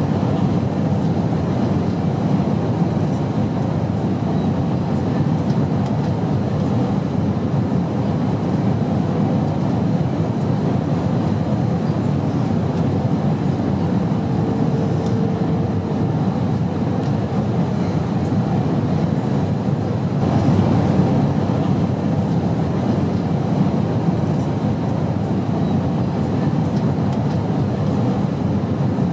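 Steady low rumble of an airplane in flight: a continuous droning noise with no breaks.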